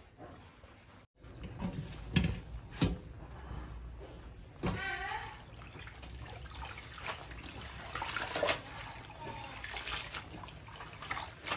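Water sloshing and splashing in a stainless steel bowl as hands swish and rinse leafy herbs, starting about a second in, with a few sharp knocks along the way.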